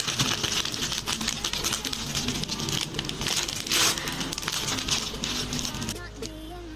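Packaging being handled and opened: dense rustling and crinkling with many small clicks. It eases off about six seconds in, when background music comes forward.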